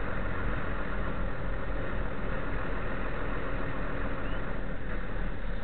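Car engine running steadily, a low rumble with a continuous hiss of noise over it.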